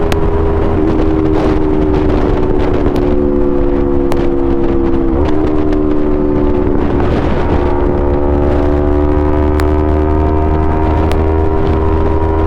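Yamaha R3's 321 cc parallel-twin running through an Akrapovic full exhaust system at steady, moderate revs, its note slowly climbing. The pitch dips briefly about five seconds in, then climbs again, over a constant low rumble.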